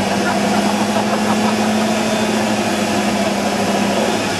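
Toyota Tacoma pickup's engine running hard at a steady pitch as its tires spin in mud and throw up muddy water; the engine note falls away about four seconds in.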